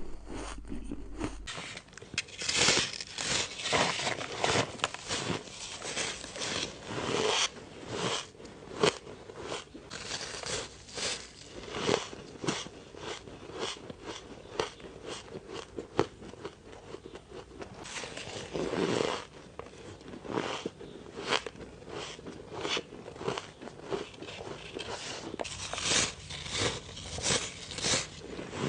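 A person biting and chewing ice close up: a long run of sharp crunching bites and chews. The crunching comes in clusters of rapid bites with quieter chewing between.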